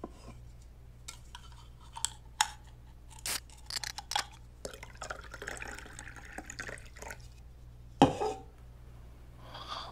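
Glass clinking and a drink being poured into a glass, a series of light taps and then a stretch of pouring. Near the end comes a single loud knock.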